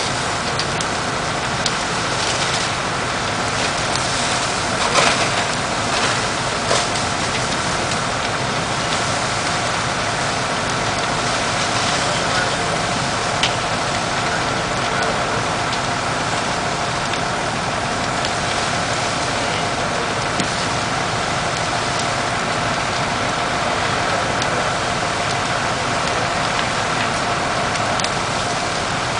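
A fire engine's motor running steadily while it pumps a hose line, under a continuous rushing hiss of water spray and the burning house, with a few sharp cracks.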